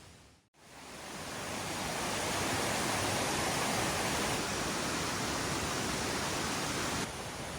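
Rushing water of a mountain valley stream, a steady even noise. It dips to silence about half a second in, fades back up, and drops abruptly to a lower level about seven seconds in.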